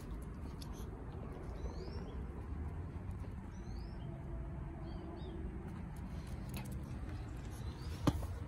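Outdoor background with a steady low rumble and a few faint, short, rising bird chirps, and a single sharp click near the end.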